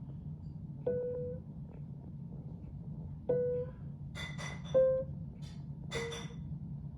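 Single note on a 2011 Knabe upright piano struck four times, each note dying away quickly, with some clicking between strikes. It is the sluggish key, too slow to return, being tried before its repair.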